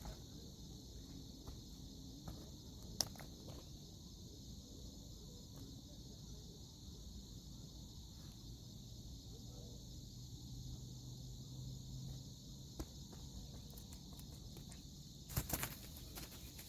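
Steady high-pitched insect chorus, with a sharp click about three seconds in and a short burst of clicks near the end.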